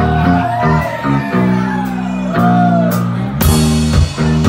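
Live rock band playing loudly: held low chords under a bending lead line, then drums come in with hard kick and snare hits about three and a half seconds in.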